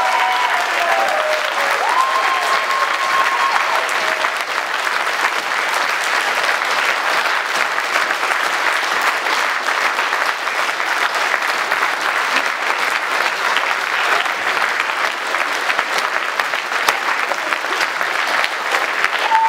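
Sustained applause from a hall full of people clapping, with a brief call rising over it about two seconds in.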